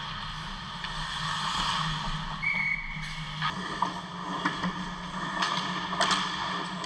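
Ice hockey play heard from beside the goal: skates scraping the ice, and from about halfway through several sharp clacks of sticks and puck. Under it all runs a steady low hum.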